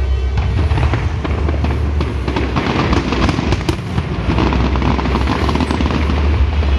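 Fireworks display going off: a dense, irregular run of crackles and quick bangs in rapid succession over a steady deep rumble.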